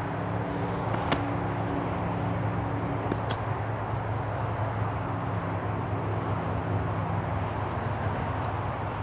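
Outdoor ambience: a steady low hum under an even rush, with small birds giving short, high, falling chirps every second or two. A sharp click comes about a second in and another about three seconds in.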